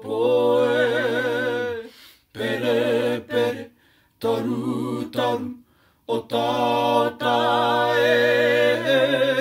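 Māori waiata sung unaccompanied by a small group of two men and a woman, in long held notes that waver in pitch, the phrases broken by short breaths about two, four and six seconds in.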